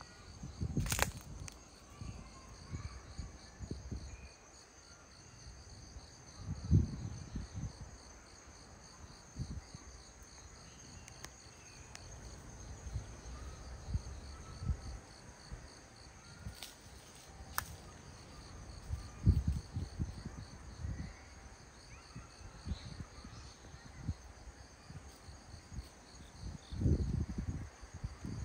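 Insects chirping in a steady, evenly pulsing high chorus. Irregular low thumps and a few sharp clicks come and go over it.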